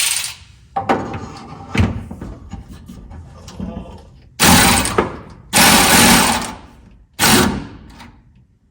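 Cordless electric ratchet wrench running in three short bursts, tightening a nut on a copper battery cable terminal, after a few clanks of metal parts being handled.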